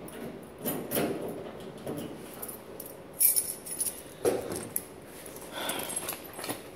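Keys jangling as a steel locker is unlocked and opened, with a few irregular knocks and clatters of handling.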